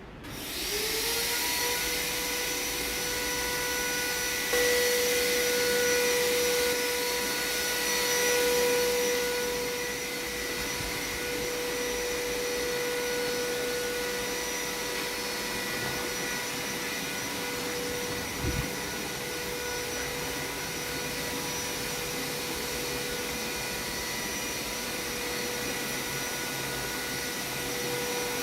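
An electric power tool's motor spins up, then runs steadily with a high whine over a rushing hiss for the rest of the stretch. It gets louder for a few seconds early on, and there is a single short knock about two-thirds of the way through.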